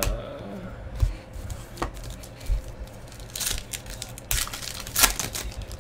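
Foil trading-card pack being torn open by hand: a few light clicks, then several short bursts of crinkling and tearing foil in the second half.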